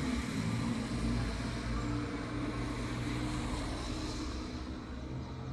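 A motor vehicle's engine running on the street, a steady low hum that slowly fades.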